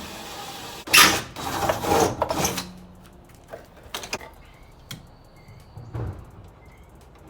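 Power drill boring a hole through a Humvee fender panel. The drill runs steadily for about a second, then about a second and a half of loud, rough grinding and scraping, followed by a few light knocks.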